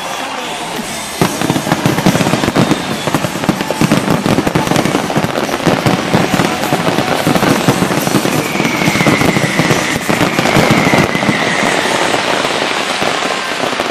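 Fireworks display: a dense, rapid barrage of bangs and crackles breaks out about a second in and keeps going, with a faint, slightly falling whistle over it in the second half.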